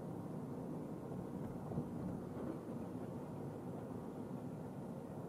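Steady low rumble of road and engine noise heard inside a car's cabin while driving, with one brief thump about two seconds in.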